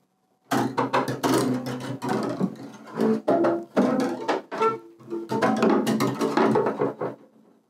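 Upright double bass bowed in short, choppy, scratchy strokes: a free improvised passage. It starts about half a second in and stops just before the end.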